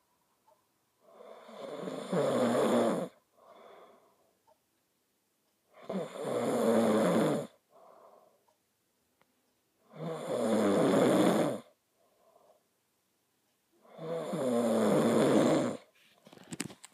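A person snoring: four loud snores about four seconds apart, each followed by a short, softer breath.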